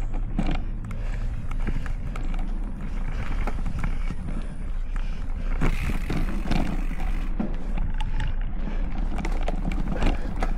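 Specialized Stumpjumper Evo mountain bike ridden over a rough dirt trail, heard from a handlebar-mounted camera: a steady rumble of tyres and frame with many small clicks and knocks from bumps and rattling parts. About six seconds in, a louder hiss-like rush lasts a second or so.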